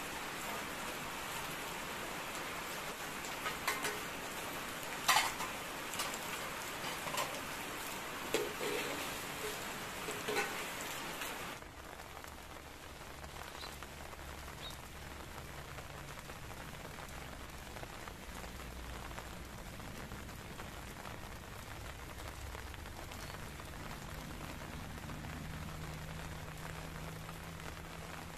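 Steady rain falling, with scattered sharp clicks and pops in the first half. About halfway through the sound cuts abruptly to a softer, duller rain hiss.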